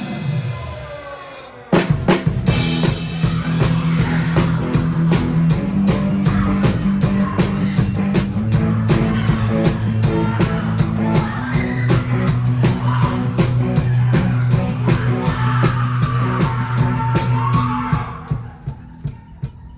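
Drum kit played with fast, steady strokes over a rock pit band. A ringing cymbal fades first, the full groove comes in about two seconds in, and the band drops back and quiets near the end.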